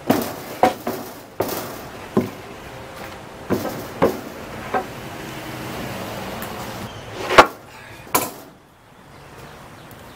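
Wooden boards knocking against each other and against a plywood sheet as lumber is set down and pushed into a frame: a series of irregular sharp knocks, the loudest about seven seconds in.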